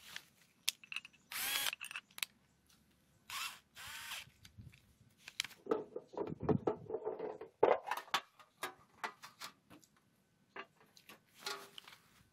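Bosch cordless drill fitted with a hole saw, run in a few short bursts, with clicks and knocks from handling a metal cookie tin in between; the busiest stretch comes in the middle.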